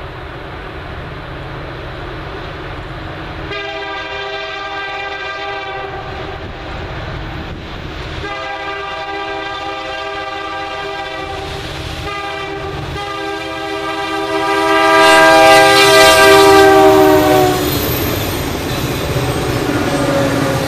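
Diesel freight locomotive's air horn sounding three long blasts as the train approaches, the last the longest and loudest, its pitch dropping as it passes. Over a steady rumble of the oncoming train, then the rumble of locomotives and freight cars going by.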